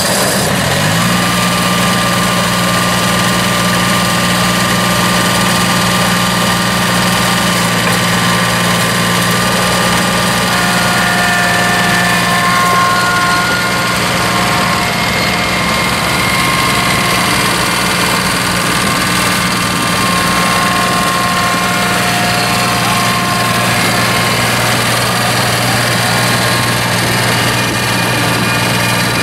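Kubota D1105 three-cylinder diesel engine of a Kubota F2560E mower running steadily, rising in pitch in the first second and then holding an even speed, with faint whining tones coming and going above it.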